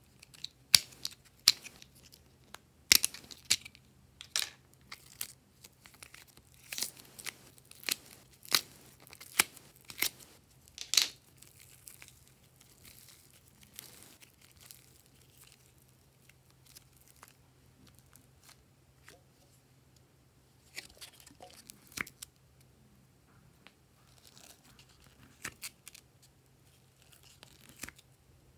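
Glossy slime pulled and stretched by hand, giving sharp sticky pops and clicks in quick succession for the first ten seconds or so, then softer, sparser crackles. A faint low hum runs underneath.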